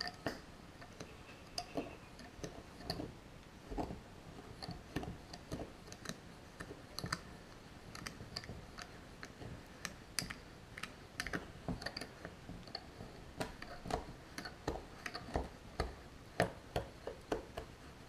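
Metal teaspoon stirring wet sand and water in a tall drinking glass, clinking against the glass in irregular taps that come faster near the end.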